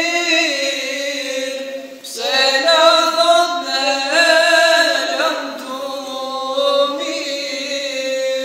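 Unaccompanied male singing of an Albanian devotional song, in long held, wavering notes. A new phrase begins about two seconds in.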